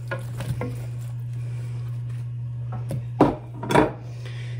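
Raw chicken wings tipped off a paper towel into a plastic mixing bowl, with soft plops and paper handling, then two sharp knocks about half a second apart a little over three seconds in. A steady low hum sits underneath.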